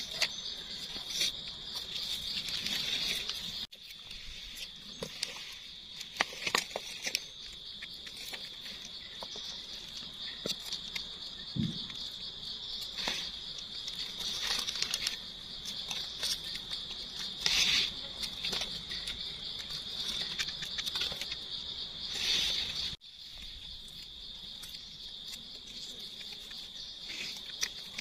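A steady high-pitched insect chorus, with irregular rustling and crackling of dry leaf litter and small scraping clicks as a knife cuts mushroom stems out of the forest floor.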